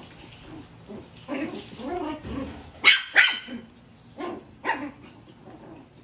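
Two puppies play-fighting: a run of low growling, then two loud, sharp barks about three seconds in, followed by two shorter yaps.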